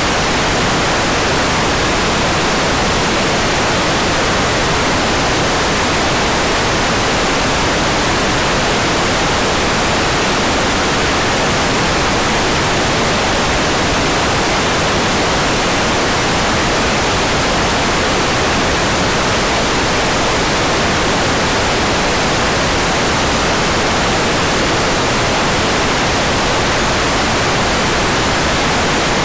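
Hair dryer running continuously, a steady even rush of blown air that does not change.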